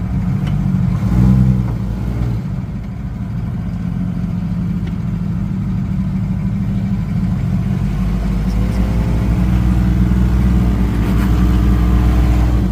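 Off-road 4x4's engine running under load while crawling. It revs up and back down about a second in, then builds again over the last few seconds.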